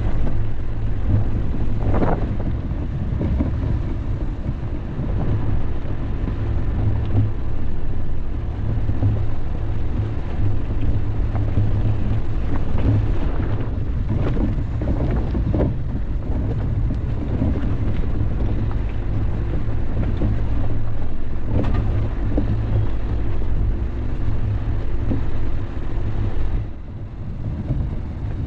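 A car, likely a Dacia Duster, driving over rough ground: a steady engine and running rumble with occasional knocks and jolts from the bumps.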